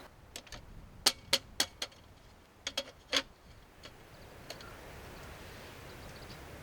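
A run of sharp clicks or taps: four quick ones about a second in, then three more around three seconds in, over a faint steady background.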